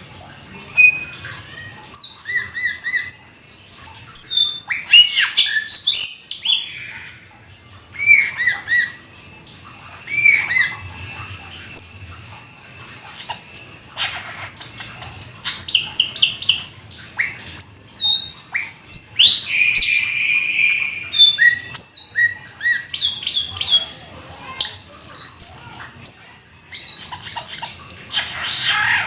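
Jalak keling starling singing a long, varied song: quick whistled notes, chirps and harsh, scratchy squawks in bursts with short pauses, and a drawn-out buzzy note about twenty seconds in.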